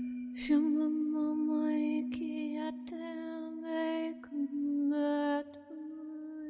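A struck tuning fork rings a steady low tone while a woman sings long wordless held notes over it, breaking off briefly several times. The fork's tone dies away near the end while her note carries on.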